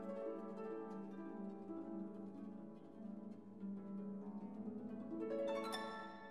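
Instrumental background music: a steady run of pitched notes, with a brighter group of notes struck about five and a half seconds in.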